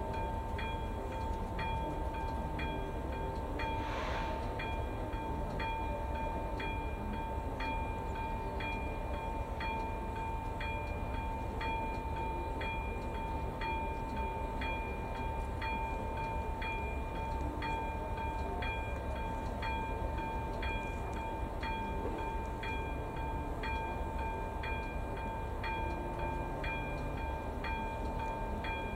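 Level-crossing warning bell (AŽD ZV02 electronic bell) ringing in an even rhythm of about one and a half strikes a second over a steady high tone, signalling that a train is approaching.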